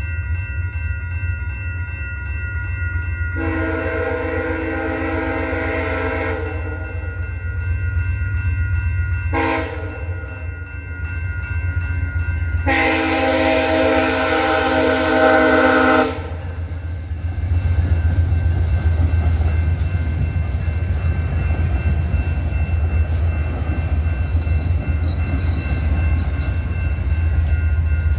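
Horn of a VIA Rail P42 diesel locomotive, a chord of several tones, sounding a long blast, a short one and another long one as the train approaches a level crossing. The train then passes close by with a loud, steady rumble of wheels on rail.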